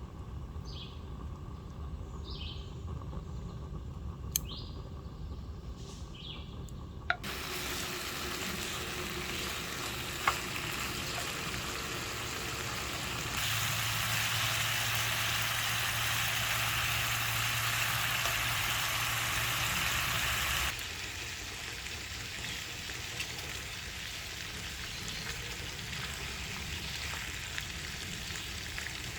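Bacon sizzling in a non-stick frying pan, a steady hiss that starts suddenly about seven seconds in. It gets louder for several seconds in the middle, then settles back.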